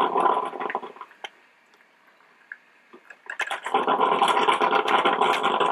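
Melitta Gevalia BCM-4C four-cup drip coffee maker gurgling mid-brew as its heater pushes hot water up to the filter. The gurgling dies away about a second in and starts again about three and a half seconds in.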